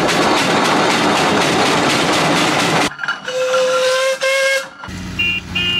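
Steam traction engine: a loud hiss of escaping steam stops abruptly, then its steam whistle gives two blasts of about a second each. After a cut, two short, higher-pitched whistle toots sound over a low rumble.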